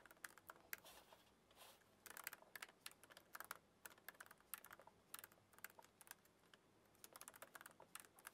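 Faint typing on a laptop keyboard: quick, irregular key clicks in runs, with short pauses between words.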